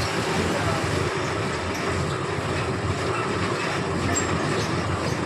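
Fabric checking machine running steadily, drawing cloth through its rollers at about a metre a second: a loud, even mechanical noise with no pauses.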